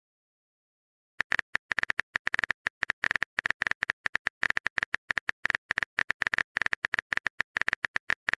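Phone-keyboard typing clicks, a rapid irregular string of short taps starting about a second in, the sound effect of a message being typed.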